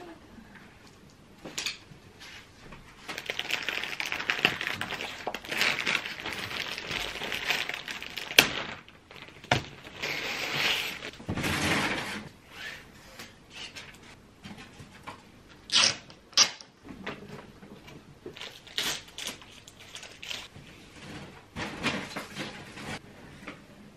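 Pleated paper blind being unfolded and pressed into place: stretches of paper rustling and crinkling, with a few sharp snaps, two of them close together past the middle.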